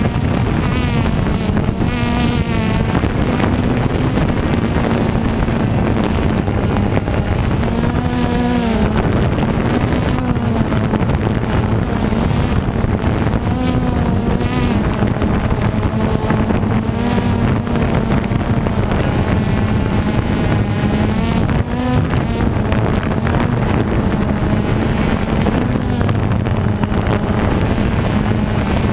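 DJI Phantom 2 quadcopter's motors and propellers buzzing, heard from its own onboard camera, the pitch wavering up and down as the motors keep adjusting their speed in flight. Wind rushes over the microphone underneath.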